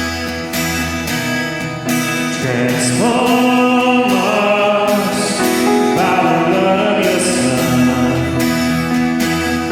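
Hymn music: an instrumental ensemble playing sustained chords, with voices singing.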